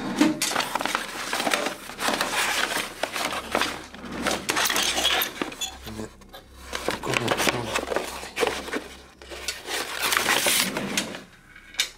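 Stiff brown paper rustling and crinkling as hands rummage through rolls and sheets of it on a metal shelf, in repeated bursts with small knocks and clinks mixed in.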